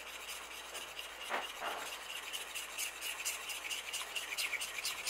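A fork stirring quickly in a stainless steel saucepan of hot milk and cream, its tines scraping the metal in fast, even strokes as egg yolks are mixed in for custard. The strokes get a little louder towards the end, with a couple of sharper scrapes about a second and a half in.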